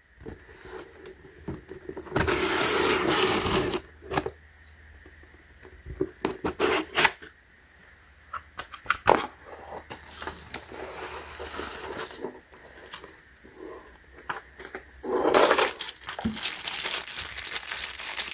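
Packaging being unwrapped and handled: plastic rustling and tearing, with scattered clicks, taps and scrapes of the part and small repair tools. A longer rustle comes about two seconds in and another near the end.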